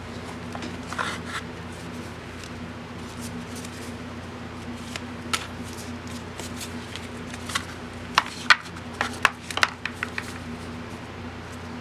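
Magic: The Gathering cards being handled and sorted through, rustling and sliding, with a quick run of sharp clicks and snaps of cards tapped together between about eight and ten seconds in. A steady low hum runs underneath.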